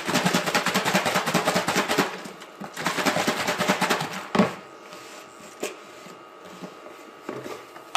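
Boiled quail eggs rattling inside a closed plastic food container with water, shaken hard in two bouts so the shells crack and loosen for peeling. The container is set down with a knock about four and a half seconds in, followed by a few light clicks of the plastic lid.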